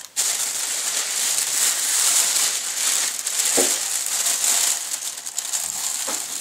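Thin plastic bag crinkling and rustling steadily as it is handled and pulled open from around a can of carburetor cleaner, with a soft knock about halfway through.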